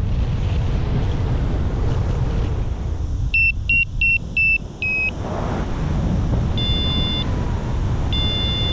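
Wind rushing over the microphone in flight, with a paragliding variometer beeping: five short beeps about a third of a second apart around three and a half seconds in, then two longer, higher tones near the end.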